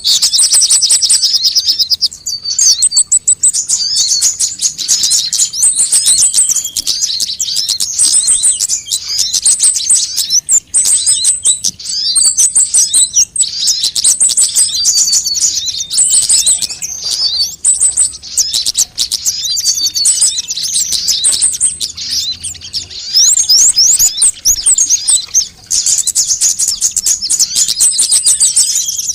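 Sunbirds calling: rapid, high-pitched chirps and twittering trills, dense and almost unbroken, with only brief gaps. This is a recorded sunbird song track of the kind played to lure birds or to train caged birds to sing.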